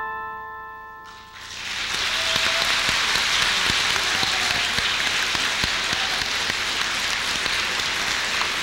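The last held chord of the song's accompaniment fades out, and about a second and a half in an audience breaks into applause that goes on steadily.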